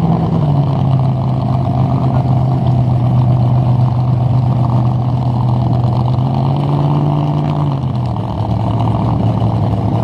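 Large engine idling loudly and steadily with a deep, even note; the pitch dips slightly about half a second in, rises briefly around seven seconds, then settles lower again.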